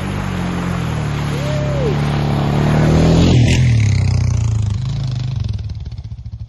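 ATV engine running under throttle, its pitch shifting as it accelerates, getting louder to a peak about three seconds in and then fading away, ending in a fast regular putting.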